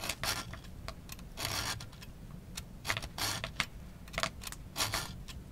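Small triangle file scraping across a tooth of a Bahco peg-tooth bow saw blade, about four short strokes roughly a second apart. The file is re-profiling and putting a new edge on dull teeth that have worn flat at the tips.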